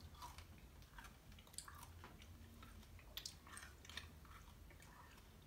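Faint chewing of sour candy: soft, scattered wet mouth clicks.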